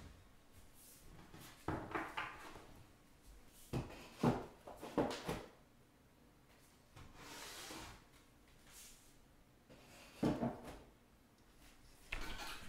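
Things being handled and set down on a table: a scatter of knocks and bumps, the loudest about four to five seconds in and again around ten seconds, with a soft rustle in between.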